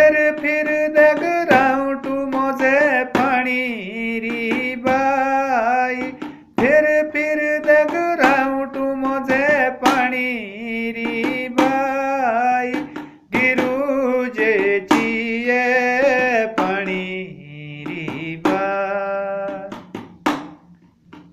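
A man singing a slow melody solo, with long held notes that bend and waver, in phrases broken by short pauses, over occasional drum strokes.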